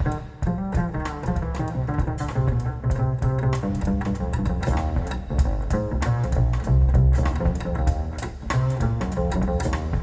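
Recorded music playing, with a heavy deep bass line and a quick run of plucked notes.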